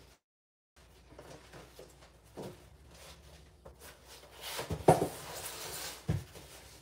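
A heavy cardboard box holding an enameled cast iron Dutch oven being handled and set down on a stone countertop: cardboard scraping and rustling, a sharp knock about five seconds in, then a duller thump a second later.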